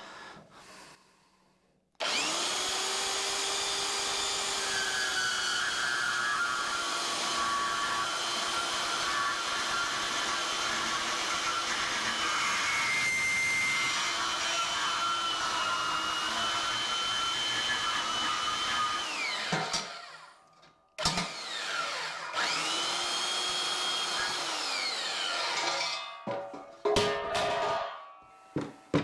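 Portable band saw with a fine-tooth bimetal blade cutting through a thin steel pallet-rack beam. The motor starts about two seconds in and runs steadily for roughly seventeen seconds, stops briefly, then runs again for about five seconds and winds down. A few clanks of metal follow near the end.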